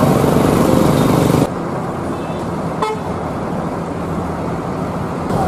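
Bus engines running amid busy traffic noise at a bus terminal, with one short vehicle-horn toot about three seconds in. The noise is louder for the first second and a half, then drops to a steadier level.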